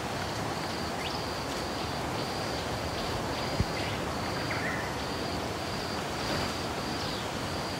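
Outdoor bush ambience: a steady hiss with a high, evenly repeated call of short notes, a bit over two a second, running on without a break. A single soft knock sounds about three and a half seconds in.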